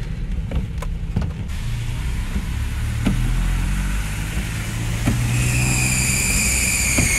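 Car driving slowly on a wet road in rain, heard from inside the car: a steady low engine hum under an even hiss of rain and wet tyres, with a few light clicks. A high steady whine comes in about five seconds in and holds to the end.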